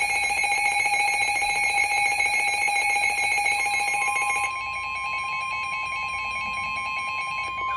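Emergency Alert System attention tones: loud, steady, overlapping electronic alert tones with no speech. A further single alert tone joins about halfway through, and the higher tones thin out a second later, just before the next warning's voice begins.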